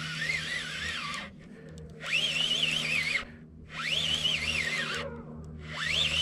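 Fishing reel being cranked hard in four quick spurts, its gears whining and wavering in pitch with the speed of the turns, as a hooked striped bass is reeled in. A steady low hum runs underneath.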